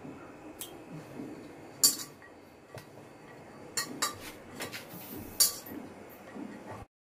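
Scattered sharp clinks and light knocks of kitchen utensils on steel, a spoon against a small steel bowl and a pressure cooker being handled. The loudest clinks come about two seconds in and again just past five seconds.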